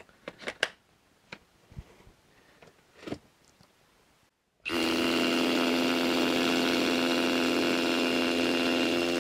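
A few light clicks and knocks, then about halfway through a Hilti Nuron TE 4-22 cordless SDS rotary hammer, fitted with a dust-removal attachment, starts drilling into a concrete block. It runs steadily at full speed.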